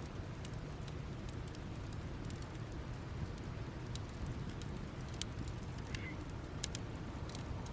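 Wood campfire burning down to embers: scattered sharp crackles and pops, a few a second, over a steady low rumble.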